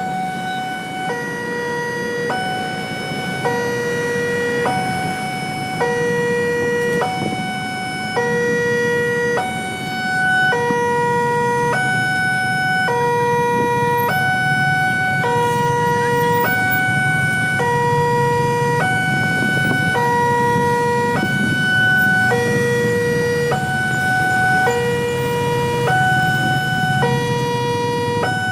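Railway level-crossing warning siren sounding, two tones alternating high and low in a steady pattern, each held a little over a second, over a low rumble.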